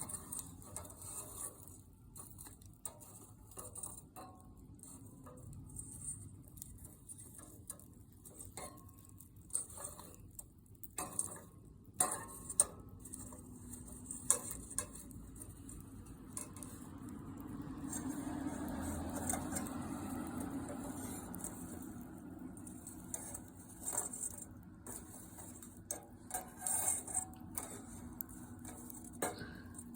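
Wood fire crackling in a fire-pit stand: irregular sharp pops and snaps over a low rushing of flame that swells for a few seconds past the middle.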